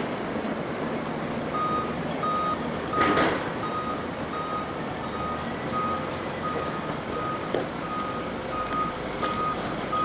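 A vehicle's reversing alarm beeping steadily, about three single-pitched beeps every two seconds, starting about a second and a half in, over the constant din of a working yard. A short louder burst of noise stands out about three seconds in.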